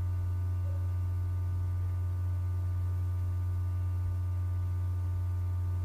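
Steady low electrical hum with a stack of fainter higher overtones.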